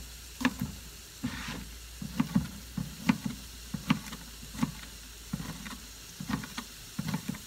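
Chef's knife dicing a red bell pepper on a cutting board: irregular sharp taps, about two a second, over the faint steady sizzle of onions frying in a small pan.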